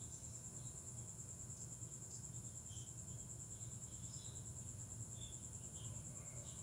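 Crickets trilling steadily in a continuous, high-pitched, finely pulsed chirr, with a few faint short chirps scattered through it.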